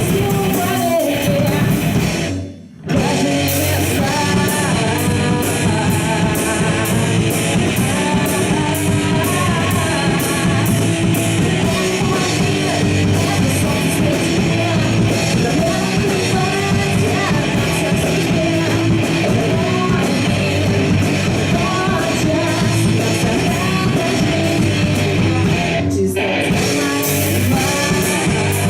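Rock band playing live, with singing over electric guitar, bass and drums. The band drops out for a brief break about two and a half seconds in, then comes back in full with a steady cymbal beat.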